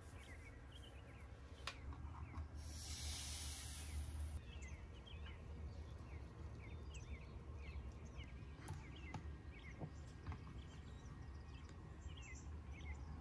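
Faint birds chirping again and again over a low steady hum, with a brief hiss about three seconds in.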